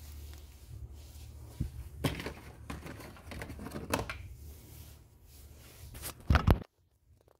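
Clatter and knocks of hands handling small objects on a workbench over a low steady hum, with the loudest knocks about six seconds in, after which the sound cuts out.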